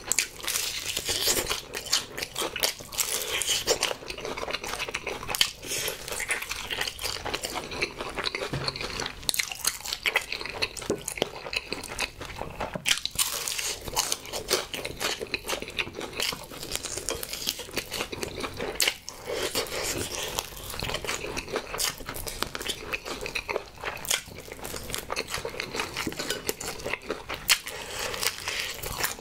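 Crunching and chewing of a crispy fried honey chicken drumstick: repeated bites into the crackling coating, with wet chewing between them.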